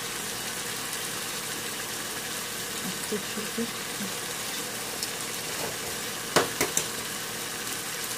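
Chickpea and egg masala sizzling and simmering in a nonstick frying pan, a steady hiss. A few sharp knocks come a little over six seconds in.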